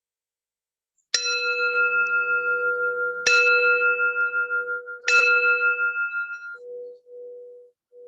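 A singing bowl struck three times, about two seconds apart, each strike ringing on over the last. The higher ring stops a little after the third strike, leaving a softer low hum that pulses as it fades.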